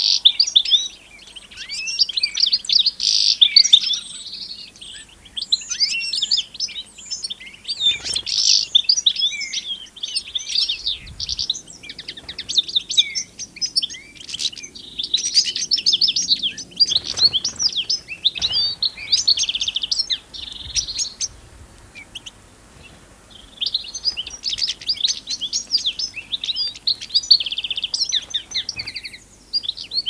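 European goldfinch twittering and singing: long runs of quick, liquid chirps and trills mixed with short buzzy notes, breaking off briefly about two-thirds of the way through.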